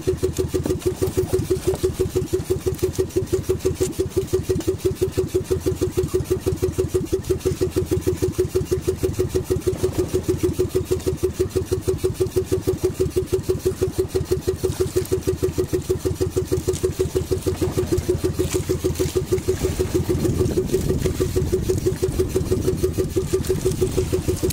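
Outrigger fishing boat's engine running steadily with a fast, even beat.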